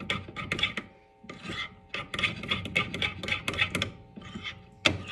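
Metal spoon scraping around a glass bowl while stirring melted chocolate, in quick strokes about four a second with a short pause about a second in.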